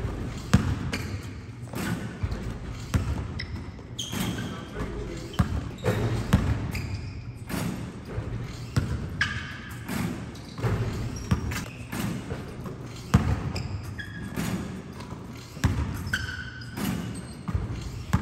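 Basketballs bouncing on a gym's hardwood floor, an irregular run of thuds a second or so apart, ringing in the large hall.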